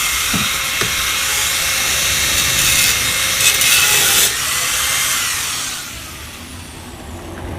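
Electric angle grinder cutting into the steel of a motorcycle exhaust muffler, a loud high hiss over a steady motor whine. The grinder is switched off about two-thirds of the way through and its whine falls as the disc spins down.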